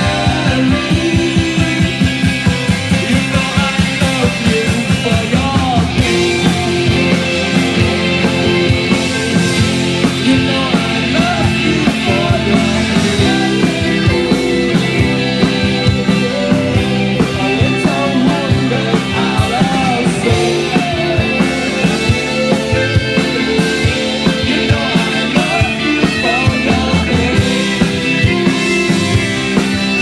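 Live rock band playing: electric guitar, bass guitar and drum kit with a steady beat, with singing over it.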